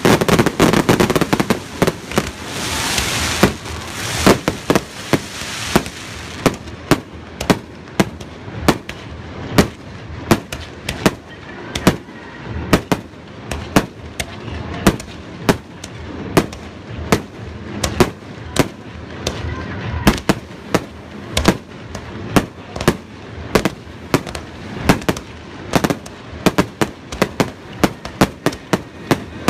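Aerial firework shells bursting in quick succession. For the first several seconds there is a dense crackling hiss, then a steady run of sharp bangs, about two a second.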